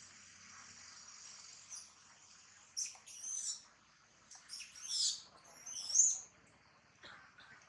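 A young long-tailed macaque squealing and screaming in several short, high-pitched, wavering cries, loudest about five and six seconds in, as an adult threatens and chases it off. Before the cries there is a steady high hiss.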